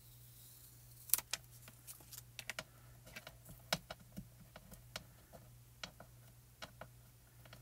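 Low-tack masking tape being peeled off a card panel and a fresh strip pressed and smoothed down by hand, giving faint, irregular light clicks and taps of paper and tape.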